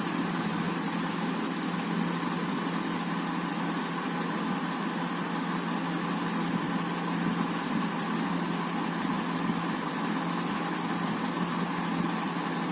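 Steady mechanical hum with a constant low tone over a hiss, unchanging throughout.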